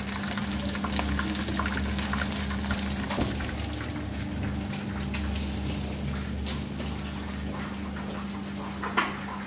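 Chicken legs frying in hot oil in a pan: a steady sizzle with many small scattered crackling pops, over a low steady hum.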